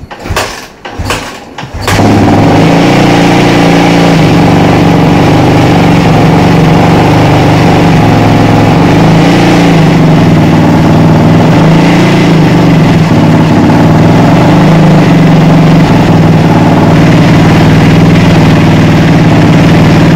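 Kawasaki KX450F's single-cylinder four-stroke engine catches after a few short knocks about two seconds in, then idles loudly and steadily with a couple of small rises in revs near the middle. The engine is being warmed up before its oil is drained.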